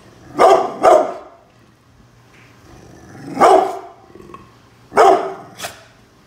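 A brindle pit bull barking in alarm at workers outside the house: five barks, a quick pair, a single one, then another pair with the last one fainter.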